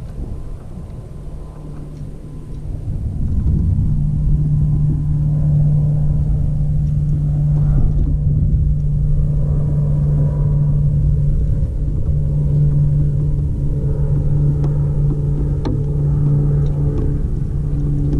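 A steady low motor hum over a rumble, growing louder about three seconds in and then holding, with a brief dip partway through.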